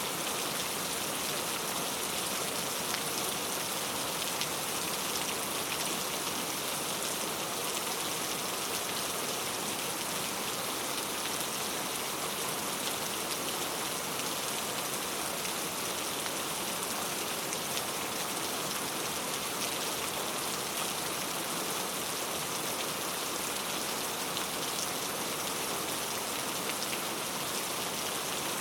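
Heavy rain falling steadily on a camping tent: a dense, even hiss with fine ticks of individual drops.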